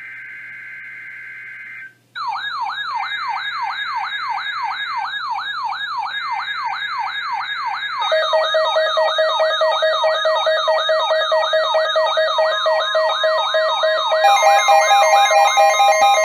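Emergency alert tones. A buzzy data tone is sent in three short bursts, the digital SAME header of a weather radio alert. From about two seconds in, rapidly wailing electronic sirens play over it. Steady alarm tones join about eight seconds in and more are layered near the end, each step louder.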